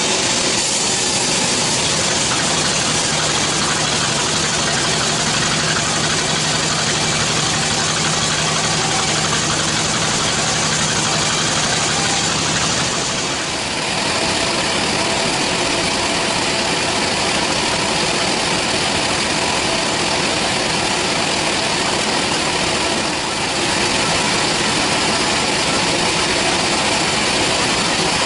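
Band sawmill running steadily, a loud, dense mechanical noise from its drive and band blade. A low hum under it in the first half stops with a short dip in level about halfway through.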